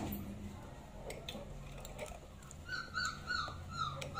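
Puppies crying: a quick run of about five short, high whimpering cries, each falling slightly in pitch, over the last second and a half.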